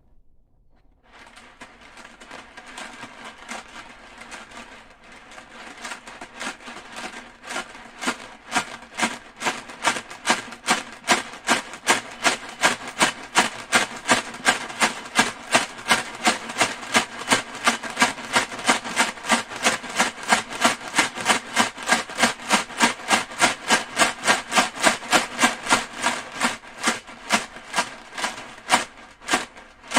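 A rhythmic series of sharp knocks, about three a second, that grows louder over the first ten seconds, keeps an even beat, and stops shortly before the end.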